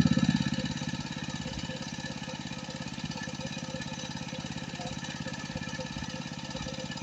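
Small engine running steadily with a fast, even chugging, a little louder in the first second.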